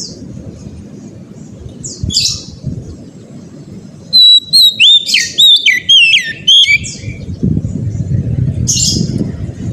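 Oriental magpie-robin singing: a short call about two seconds in, then a loud run of quick whistled notes sliding up and down for about three seconds in the middle, and one more note near the end. A steady low rumble runs underneath.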